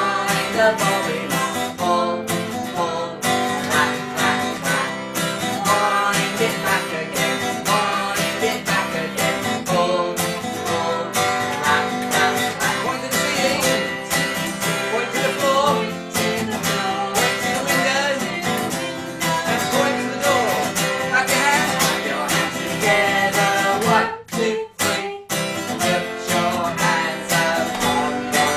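Yamaha acoustic guitar strummed steadily, with a man and a woman singing along. There is a brief pause in the playing about 24 seconds in.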